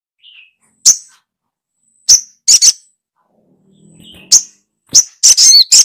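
Little spiderhunter (sogok ontong) calls played as a bird lure: sharp, high single calls spaced a second or so apart. Near the end they run into a quick string of calls.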